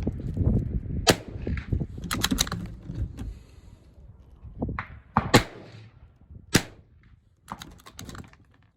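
.22 LR firearm firing a string of single shots, a second or more apart, each a short sharp crack. Wind buffets the microphone with a low rumble, heaviest in the first half.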